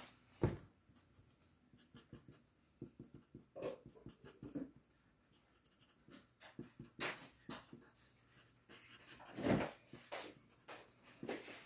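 Colour marker tip scratching on paper in short strokes as a drawing is coloured in, with light ticks and a few louder bumps from handling, the loudest about nine and a half seconds in.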